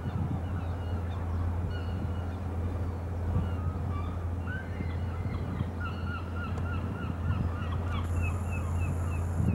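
Gulls calling in quick runs of short, repeated cries over a steady low hum.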